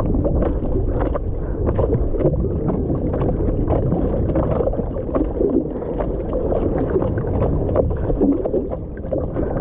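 Water splashing and sloshing as a surfer paddles prone on a surfboard, heard right at the board's nose just above the water: repeated splashes from the arm strokes over a steady low rumble of water rushing past.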